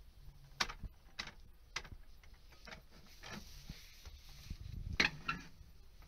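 Scattered light clicks and knocks from handling a pole-mounted smoke tester held against a ceiling smoke detector, with a louder knock about five seconds in.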